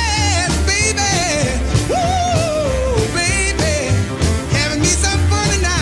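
Rock and roll song: a singing voice with wavering long notes over a steady pulsing bass line and drums.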